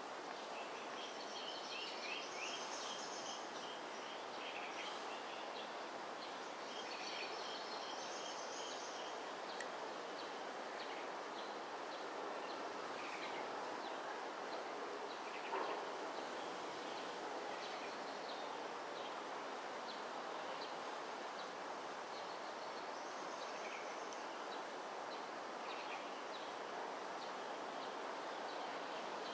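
Outdoor ambience: a steady background hum with birds calling in short runs of quick chirps near the start, again about seven to nine seconds in, and near the end. A single brief knock about halfway through.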